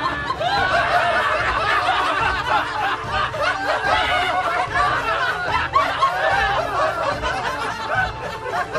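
Many people laughing and chuckling together, their laughs overlapping in a steady dense mass, a laugh track laid over the clip.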